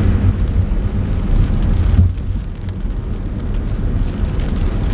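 A car driving through a tropical storm: a loud, steady low rumble of road and wind noise with rain noise over it.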